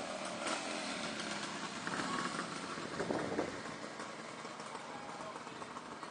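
Steady engine and road noise from a vehicle riding slowly along a street. A motorcycle passes close by about half a second in, and there are a couple of brief louder patches a few seconds in.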